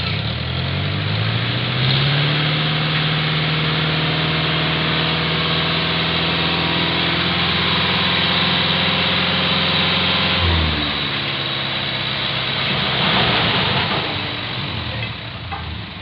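A small dump truck's engine revs up and holds a steady high speed to drive the hydraulic hoist as the loaded bed tips up, then drops back to idle about ten seconds in. A few seconds later comes a rushing, scraping sound as the load of soil slides out of the raised bed.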